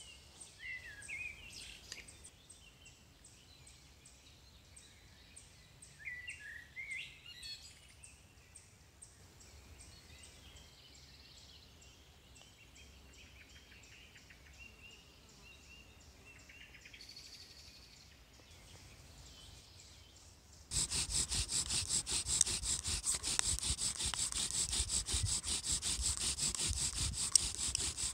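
Bow drill for friction fire: a wooden spindle, spun back and forth by a bow, grinds into a wooden hearth board in a fast, steady rasping rhythm. It starts abruptly about 20 seconds in and is the loudest sound. The board is smoking with black char dust as an ember forms. Before it, only birds chirping now and then against a quiet woodland background.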